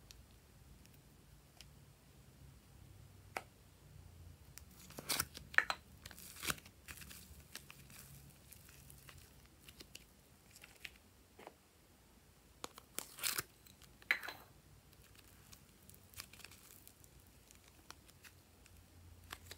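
Hands handling slime, soft clay and small plastic charms: scattered soft clicks and crackles, with two louder clusters of crackling about five and thirteen seconds in.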